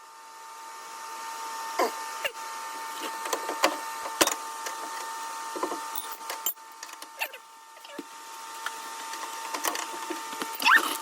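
Scattered clicks and clinks of hand tools working on metal car parts, over a steady high-pitched electrical hum.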